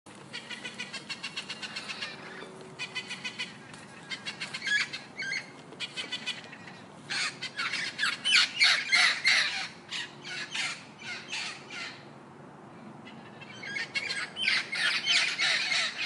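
Budgerigar chattering in bursts of rapid, scratchy chirps, with a lull of about two seconds near the end.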